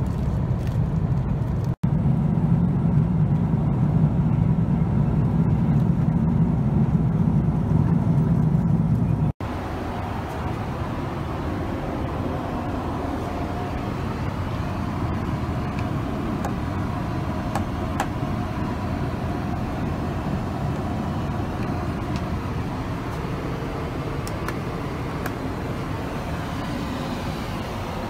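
Steady in-flight cabin noise of a Boeing 777-200ER airliner: a low, even drone of engines and airflow. About nine seconds in it cuts to a quieter, thinner hum inside the aircraft lavatory, with faint steady tones.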